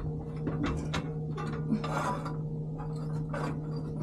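Metal parts rubbing, scraping and knocking as a refrigeration evaporator coil is worked loose from its housing, over a steady machine hum.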